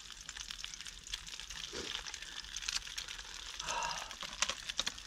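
Egg frying in a pan over a small wood-burning box stove: a soft, steady sizzle with many small crackles.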